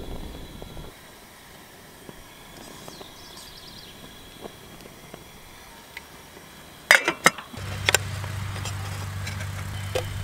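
Metal cookware clanking on a portable butane camp stove, several sharp strikes in quick succession about seven seconds in, as a steel pot is lifted off and a pan set on. A steady low hum sets in just after.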